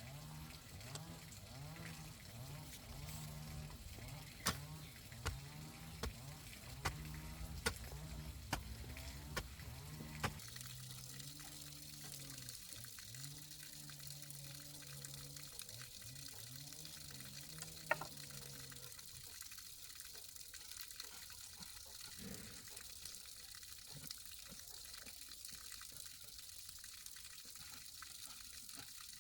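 Water running and gurgling through a fish pond's drainage pipe, with a quick series of sharp knocks in the first third. After about twenty seconds the gurgling gives way to a faint, steady hiss of flowing water.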